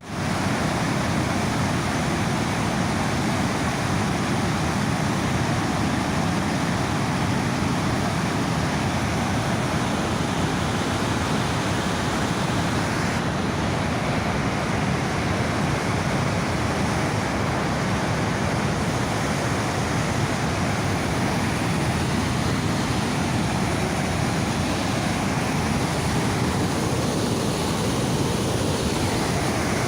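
Niagara River rapids rushing just above the falls: a loud, steady roar of fast white water, heaviest in the low end, without letting up.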